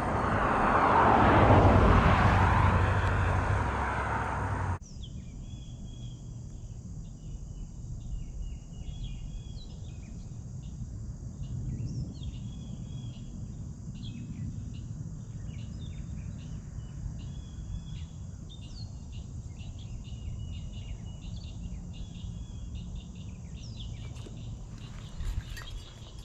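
A loud rush of noise for the first five seconds, cutting off suddenly. Then many short, high chirps of insects and birds over a faint low rumble.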